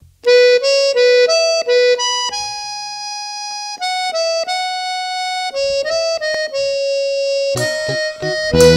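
Quadrilha junina music opening with a solo free-reed instrument playing a melody of short, then long held notes. Near the end other instruments and a bass come in.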